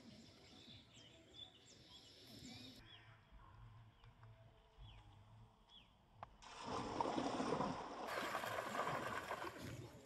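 Birds chirping faintly, then from about six and a half seconds a loud, steady splashing noise as a cast net is thrown and its weighted edge comes down on the pond water.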